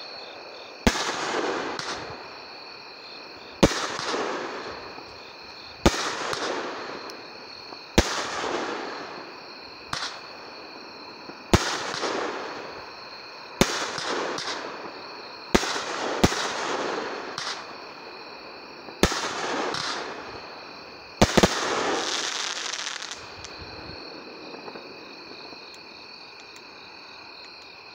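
A 500-gram consumer fireworks cake firing about a dozen shots, roughly one every two seconds. Each is a sharp bang with a fading crackling tail, and the last two come close together about 21 seconds in. A steady high insect trill runs underneath and is left alone once the shots stop.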